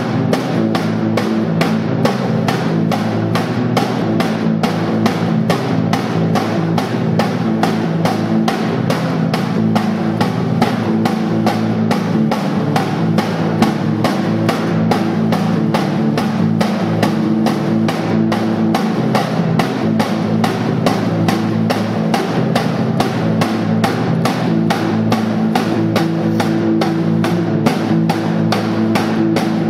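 Live music for guitar and drum: a rapid, even drumbeat that never lets up, over a sustained, droning low guitar sound.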